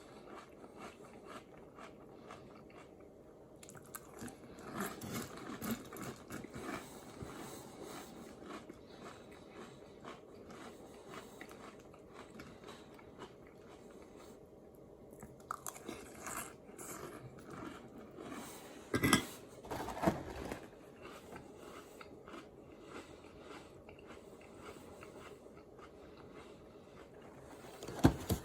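A person chewing and crunching a mouthful of Lucky Charms cereal in milk, with a few sharp knocks, the loudest about two-thirds of the way through and again near the end.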